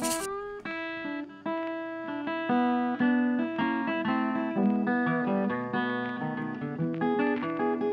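Background music: an acoustic guitar playing plucked notes.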